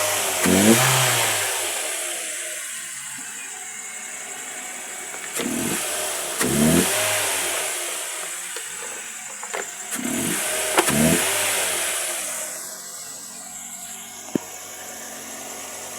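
2010 Ford Focus engine running and revved several times, each rev rising and falling back in pitch.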